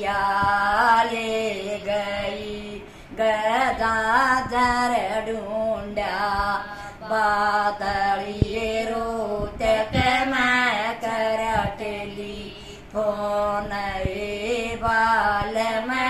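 A woman singing a Haryanvi folk song solo in a chanting melody, in long sung phrases separated by brief pauses.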